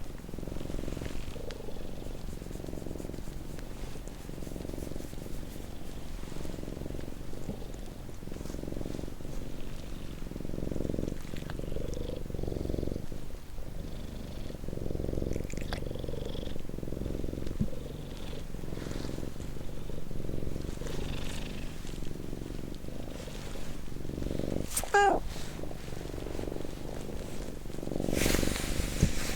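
Domestic cat purring close to the microphones: a low rumble that swells and fades with each breath in and out. Near the end come a short high squeak, then a brief rustle.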